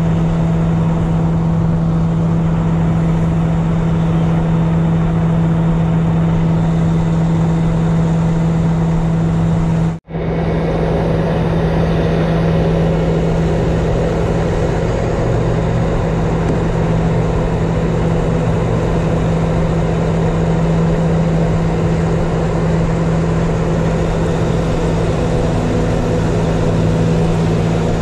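A recovery truck's engine runs steadily with a constant low hum while the winch line drags a submerged pickup up the boat ramp. The sound drops out for an instant about ten seconds in.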